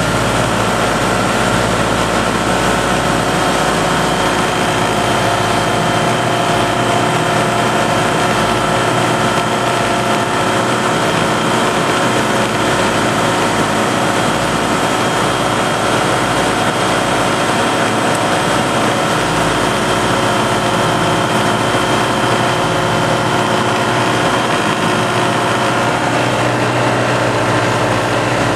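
Pipistrel Sinus motorglider's engine and propeller running steadily in flight, heard from inside the cockpit, with a steady drone of several held tones over a rushing noise.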